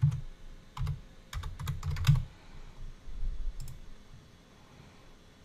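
Computer keyboard keys clicking in a short run of typing, with dull low knocks alongside, then two more clicks about three and a half seconds in.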